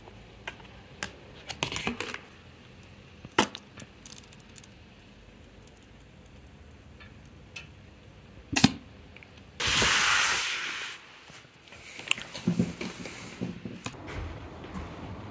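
Scattered clicks and knocks of objects being handled, then a short hiss lasting about a second, some ten seconds in.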